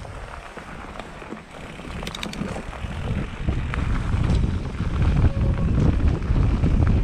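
Mountain bike descending a rough dirt trail: wind rushing over the camera's microphone and the rattle and rumble of the bike, growing louder about halfway through, with a few sharp clicks around two seconds in.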